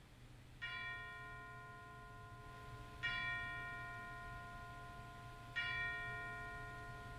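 A bell struck three times, about two and a half seconds apart, each stroke ringing on and slowly fading under the next; the second and third strokes are a little louder than the first.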